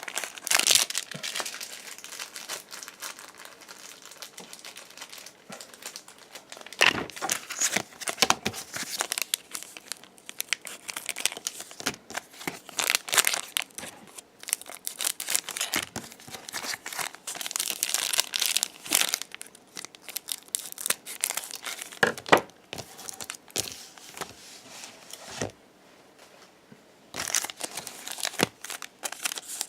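Trading card booster pack wrappers crinkling and tearing as packs are opened by hand, with irregular rustles and sharp crackles and a short lull near the end.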